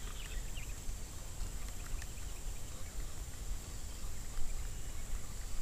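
Outdoor ambience: a steady low rumble with a faint, steady high-pitched tone and a few light clicks.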